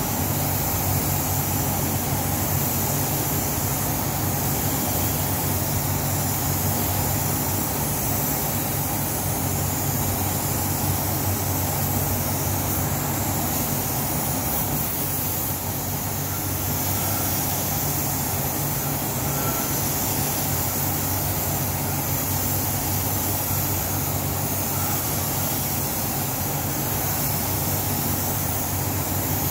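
Steady hiss of a compressed-air paint spray gun, over the constant run of a spray booth's ventilation fans with a low, steady hum.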